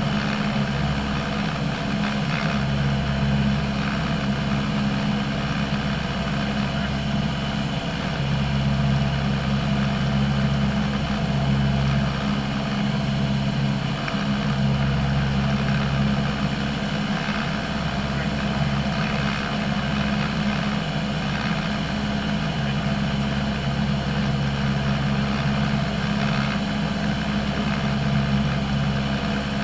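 Single-engine light aircraft's piston engine and propeller in cruise flight, heard inside the cabin as a loud, steady drone.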